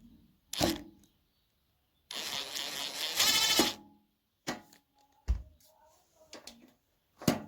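A small Bosch drill runs for about a second and a half, backing screws out of an amplifier's metal case. Sharp clicks and knocks from handling screws and metal parts come before and after it, with a low thump partway through.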